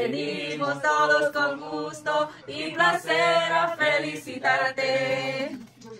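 Several voices singing a birthday song together without accompaniment, in held notes and phrases with short breaks between them.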